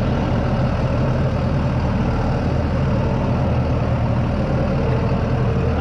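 Engine of heavy log-handling equipment running steadily at a low idle, a constant low hum with no change in speed.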